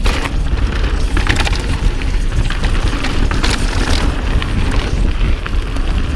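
Wind buffeting the microphone: a heavy, steady low rumble with scattered short clicks and rattles.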